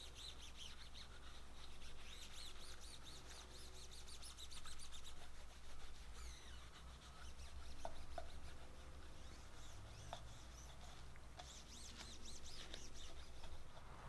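A polishing cloth rubbed quickly back and forth over a machined aluminum block, each stroke a faint high squeak, several a second. The rubbing comes in two spells with a quieter stretch in the middle.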